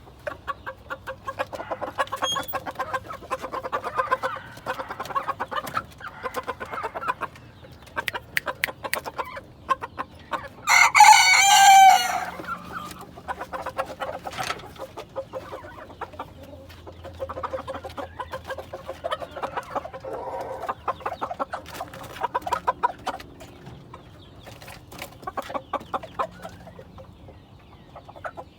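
Ko Shamo bantam chickens clucking, with a rooster crowing once, loudly, about eleven seconds in.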